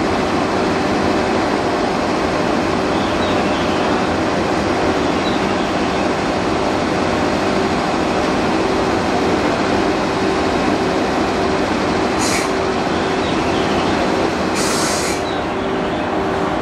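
Stationary EF81 electric locomotive idling at the platform: a steady fan-like hum of its running cooling blowers, with a constant tone. Two short hisses of air come about 12 seconds in and again near 15 seconds.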